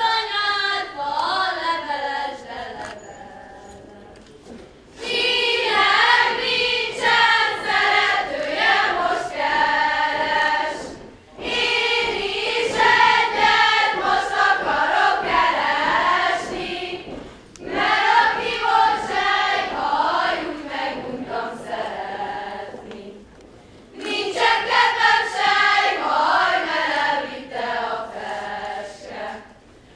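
Group of girls and young women singing a folk song together without accompaniment, in phrases of about six seconds with short breaks between them.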